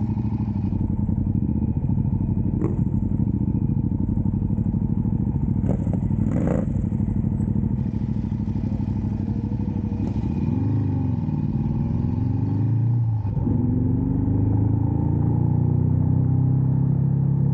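Ducati motorcycle engine running at low revs as the bike rolls along slowly, with a brief rise and fall in revs about eleven seconds in and the revs climbing again a couple of seconds later. A few light clicks sound around three and six seconds in.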